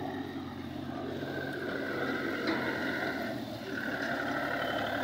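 John Deere 5045D tractor's three-cylinder diesel engine running steadily as it drives along, getting louder as it comes closer, with a higher whine joining in partway through.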